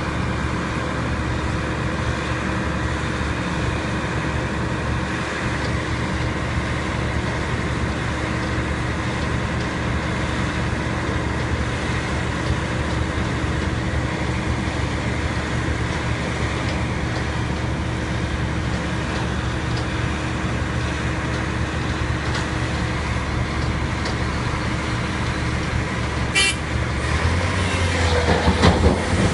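Sany crawler excavator's diesel engine running steadily alongside a dump truck's engine as the truck reverses down to it. Near the end a brief toot sounds and the engine note rises, followed by clunks and thuds as a bucket of earth is dropped into the truck's steel tipper body.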